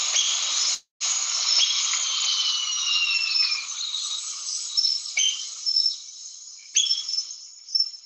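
Recording of great curassow calls: thin, high whistles, including one long falling whistle, over a dense hiss of tropical insects. The recording drops out briefly just before a second in.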